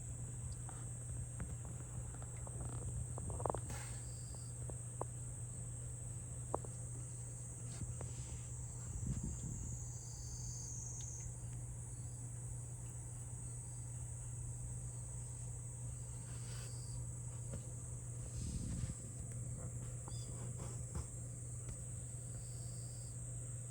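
Steady high-pitched trilling of insects, with a low steady hum beneath and a few faint clicks.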